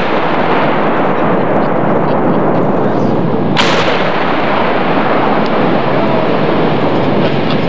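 A sharp blast about three and a half seconds in, from a demolition charge detonating, heard over a loud, steady rushing noise.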